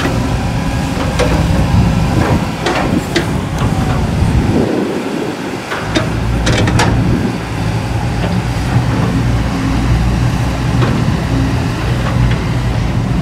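Kobelco hydraulic crawler excavator running as it digs, its diesel engine holding a steady hum under load. Several sharp metallic clanks from the bucket and linkage, the loudest about seven seconds in.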